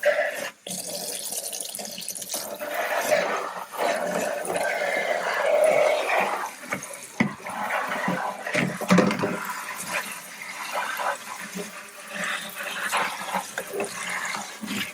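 Tap water running and splashing over a plastic RC car body as it is rinsed clean, the splashing rising and falling as the body moves under the stream.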